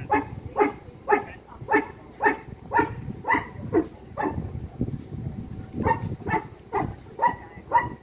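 A dog barking steadily, about two barks a second, with a short pause midway before it starts up again.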